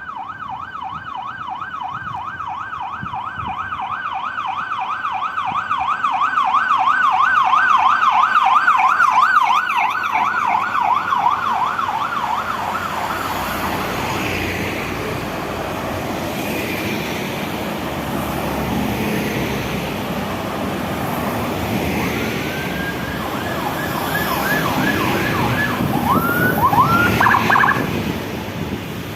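Convoy escort vehicle's siren in a fast yelp, about four or five cycles a second. It grows louder to a peak about nine seconds in, then gives way to road noise of passing vehicles. A second siren winds up about twenty-two seconds in, warbles, and ends with a few short whoops near the end.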